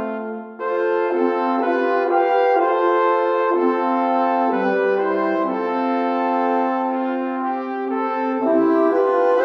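Background music of slow, held chords, with a short break about half a second in.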